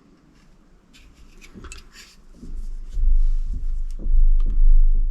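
Handling noise: a few light clicks in the first two seconds, then from about two and a half seconds in a loud low rumble with irregular thumps.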